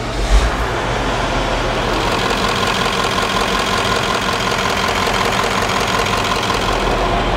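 Freshly rebuilt 4.0-litre OM628 diesel V8 of a Mercedes-Benz G-Class catching with a brief surge less than a second in, then idling steadily. It is running well after the overhaul.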